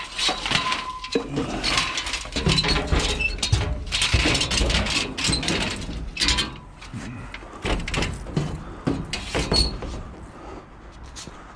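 Irregular clattering and knocking of scrap items being handled and moved, with rustling between the knocks; busiest in the first half, then thinning out and quieter toward the end.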